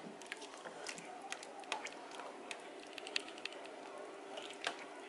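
Silicone spatula stirring rice and beans in water in a nonstick pot: quick, irregular light taps and scrapes against the pot, over a faint steady hum.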